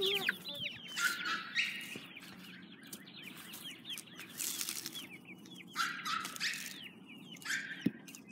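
Young chicks peeping again and again in short, falling chirps. A few short bursts of rustling noise come and go, and a single sharp click sounds near the end.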